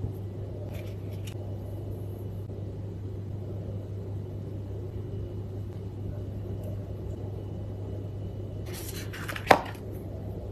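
Cosmetic packaging handled by hand: a few light clicks about a second in, then a cluster of plastic taps and clicks near the end that finishes in one sharp click, over a steady low hum.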